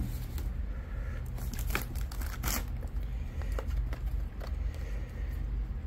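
Plastic air-cushion packing and cardboard boxes being handled: irregular crinkles, rustles and light knocks, the loudest about two and a half seconds in.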